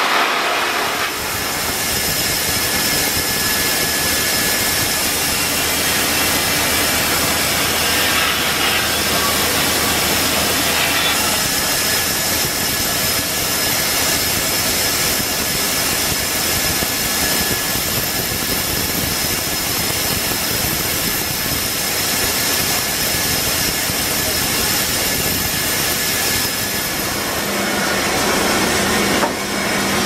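Sawmill running loudly and steadily: the mill's saw and drive machinery cutting a log, with a steady high whine over the noise. A low hum drops out about eleven seconds in.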